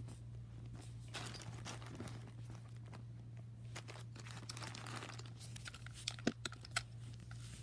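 Small plastic Littlest Pet Shop toy figures and plush toys rustling and clicking against each other as a hand rummages through a pile of them, with a few sharper clicks about six seconds in.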